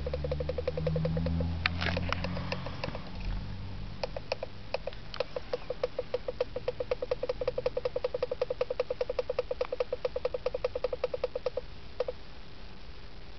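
A long run of short, sharp clicks, several a second, lasting about twelve seconds, as the knob or buttons of a Volkswagen factory car stereo are worked after the music cuts off. A low hum fades out in the first few seconds.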